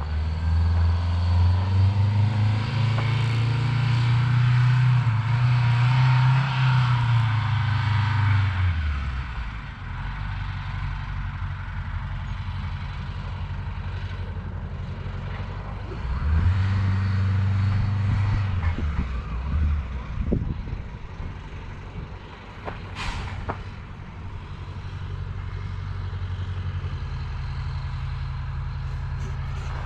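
A big truck's engine running as it comes down the road, dropping in pitch as it slows about nine seconds in. It swells again briefly a little past halfway, then a short sharp hiss is heard about three quarters of the way through, and the engine runs steadily after that.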